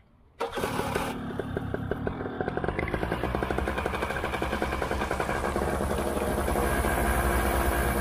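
Paramotor's Vittorazi Moster 185 single-cylinder two-stroke engine catching about half a second in and running steadily at idle, rising a little in speed and loudness after about six seconds.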